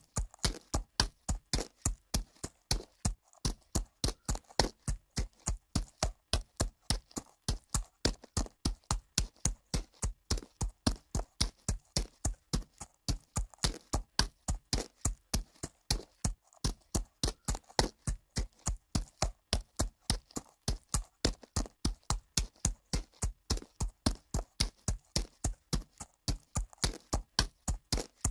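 Horse walking on dirt: a steady, even run of hoof falls, about three a second.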